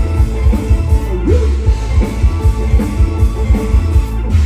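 Live concert band music with a heavy bass and a steady drumbeat, electric guitar over it.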